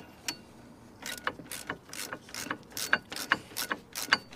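Hand ratchet wrench clicking steadily, about three clicks a second from about a second in, as it tightens the M12 bolts that hold the brake caliper saddle onto the van's front hub.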